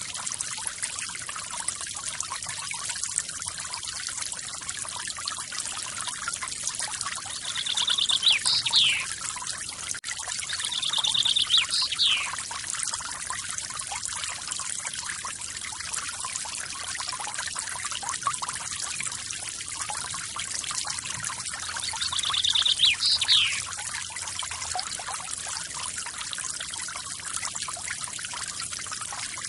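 Steady splashing of a forest waterfall. A bird calls three times over it, each call a short buzzy trill followed by a quick sweeping note.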